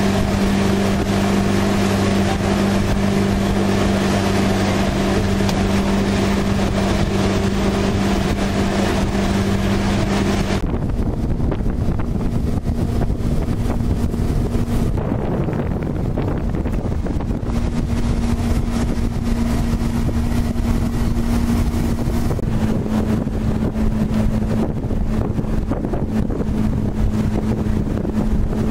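Boat motor running steadily at a constant pitch, with wind and water rushing past. About ten seconds in the sound changes abruptly to a louder rush of wind and water, with a fainter, slightly higher engine hum.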